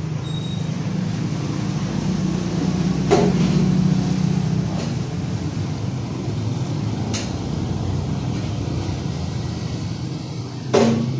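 Sharp metal clanks as a corn planter's steel hopper box and frame are handled and fitted together, three knocks with the loudest near the end, over a steady low hum.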